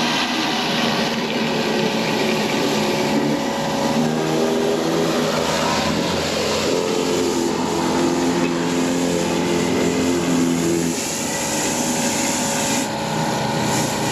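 Stihl RB 400 gas pressure washer running steadily, with the hiss of high-pressure water from a wheeled surface cleaner scouring concrete. The engine note wavers and shifts pitch through the middle, then settles again.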